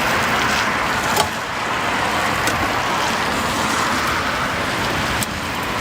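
Steady sizzling of food frying in a wok, with a few sharp metallic clicks from the spatula or wok.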